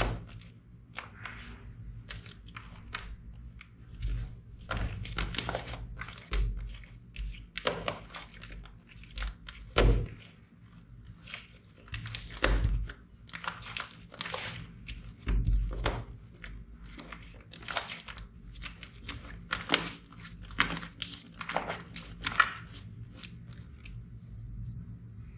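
Slime being pressed and squeezed by hand: irregular sharp clicks, crackles and soft thumps.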